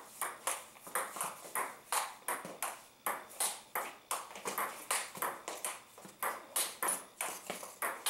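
Table tennis rally of topspin loops and counterloops: the plastic ball cracks off the rubber paddles and clicks on the table in a quick, steady run of sharp clicks, a few a second.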